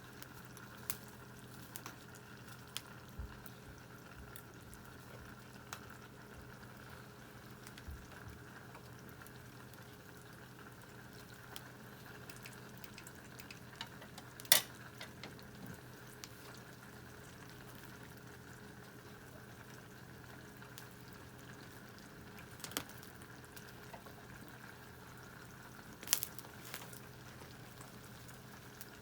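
Food bubbling in an open tin can heated over a wood fire, a steady low simmer with scattered small crackles from the burning wood and a sharp snap about halfway through.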